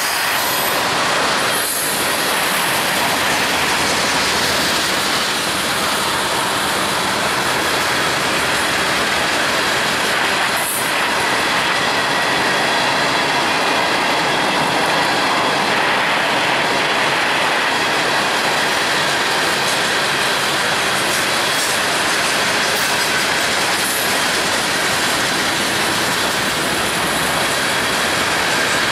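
Freight train of tank cars, covered hoppers and boxcars rolling past close by: a steady, loud rush of steel wheels on rail.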